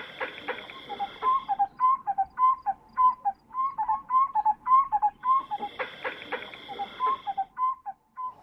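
African bushveld ambience: a bird calls over and over in short, clear notes, about two a second, while a steady high buzz comes in twice for about two seconds each.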